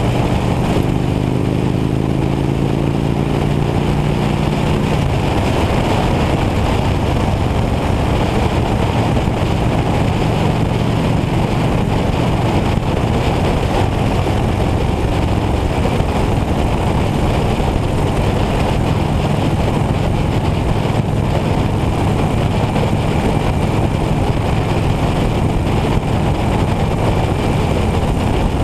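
Motorcycle engine running at road speed under heavy wind rush on the bike-mounted microphone. The engine note rises over the first few seconds, sinks into the wind noise, then holds steady.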